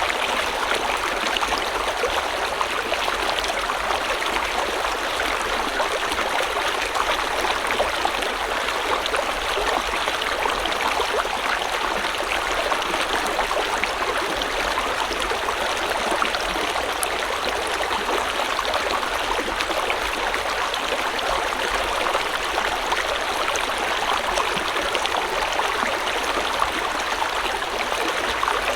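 Shallow river or stream flowing steadily, its water splashing and burbling at an even level.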